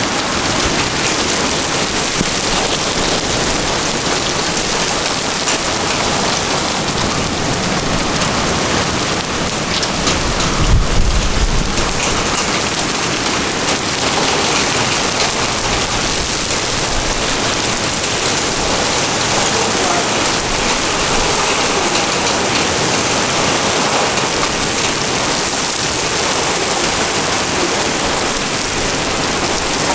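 Heavy rain pouring steadily onto pavement in a thunderstorm, with a short low rumble about ten seconds in.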